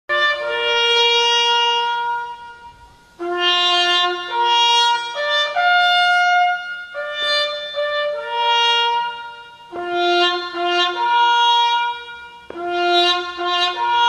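Solo trumpet playing a slow melody of long held notes in phrases with short breaks between them: the trumpet call sounded for a moment of silence.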